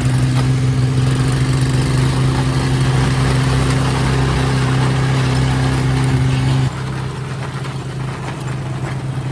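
Small vehicle engine running at a steady speed while riding. Its note drops and gets quieter about two-thirds of the way through.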